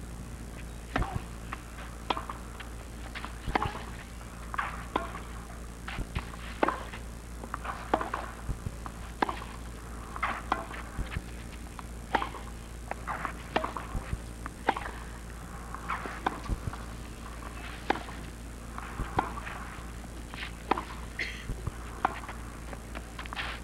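Tennis rally on a clay court: irregular sharp racket strikes on the ball and ball bounces, roughly one every second.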